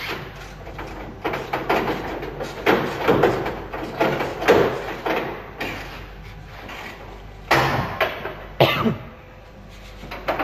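Irregular metallic scrapes, clunks and rattles as the steel hood of a 1972 Dodge Charger is shifted and worked on at its hinges, with a series of short noisy scrapes that are loudest about halfway through and again near the end.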